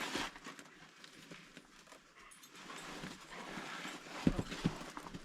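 Footsteps crunching in snow, with a couple of louder thumps about four and a half seconds in.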